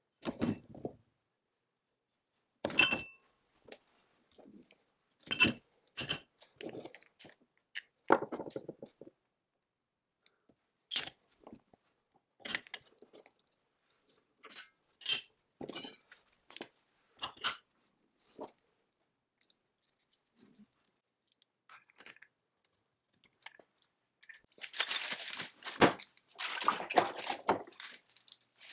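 Rusty metal parts set down one at a time into a plastic mesh basket: a series of separate clinks and clunks, a second or two apart. Near the end comes a longer, louder rattling and scraping.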